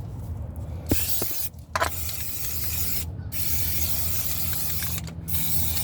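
Aerosol can of primer spraying in light coats: a steady hiss that starts about a second in and breaks off briefly three times between sweeps.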